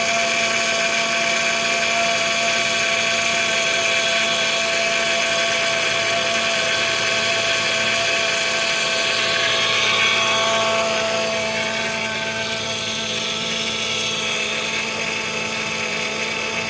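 2005 Honda Accord's 3.0-litre V6 idling just after a cold start, with a loud, steady whirring whine from the serpentine belt area. The whine eases a little about eleven seconds in.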